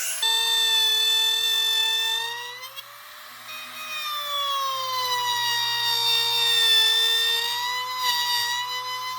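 A power tool's electric motor whining at a high pitch. The pitch wanders: it rises a little, sinks slowly over several seconds, then steps back up near the end.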